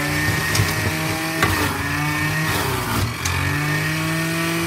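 Electric centrifugal juicer motor running, juicing carrots and apples. Its hum dips in pitch and climbs back about three times as it takes the load, with a few sharp clicks.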